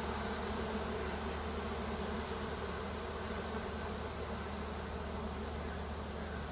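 Honey bee swarm in flight: thousands of bees buzzing together in a steady hum as the colony swarms out of its hive.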